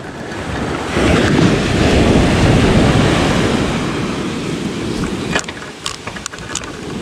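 Ocean surf washing up the beach, swelling about a second in and then easing off, with wind on the microphone. A few sharp clicks near the end.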